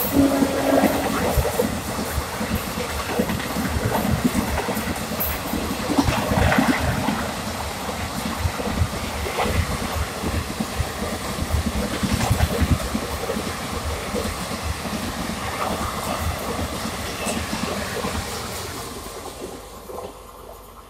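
Passenger coaches of an express train rushing past at speed on the next track, with a dense rattle and clatter of wheels over the rail joints. Near the end the clatter fades away as the last coach passes and recedes.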